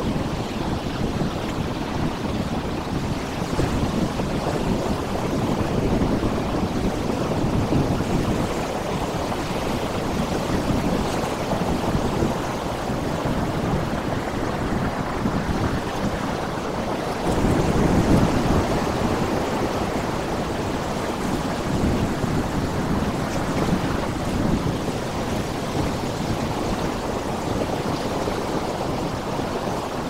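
Sea surf: waves breaking and washing over a rocky shore, a continuous rushing that swells and ebbs, with its loudest surge a little past the middle.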